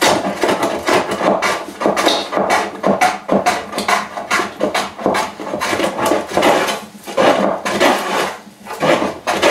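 Metal hand plane shaving the edge of a wooden plank in quick repeated strokes, about two a second, taking the edge down.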